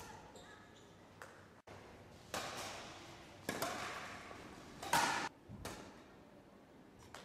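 Badminton rackets striking a shuttlecock in a rally: a series of sharp hits about a second apart, each ringing on in the sports hall's echo, the loudest about five seconds in.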